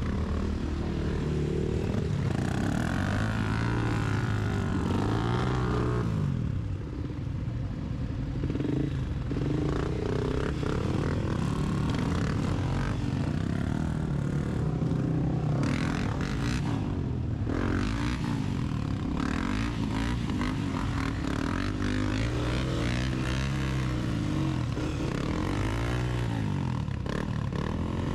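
Off-road motorcycle engine revving up and down on a muddy trail, its pitch rising and falling every few seconds as the throttle is worked, with a short ease-off about a quarter of the way in.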